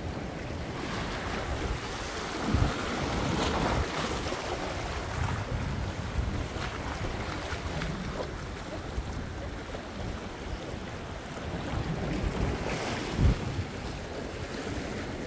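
Wind buffeting the microphone over a steady outdoor rushing noise, with a few low thumps, the loudest about 13 seconds in.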